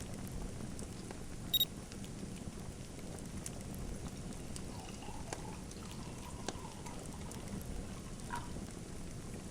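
Wood fire in a fireplace crackling over a steady hiss, with scattered small pops and one sharper, louder pop about one and a half seconds in.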